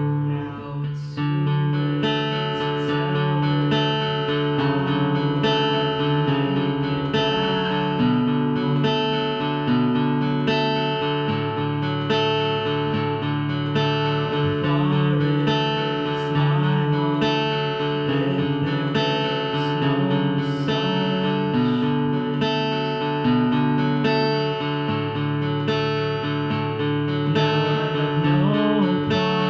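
Acoustic guitar played in a continuous instrumental passage, chords picked and strummed in a steady rhythm with the notes ringing on.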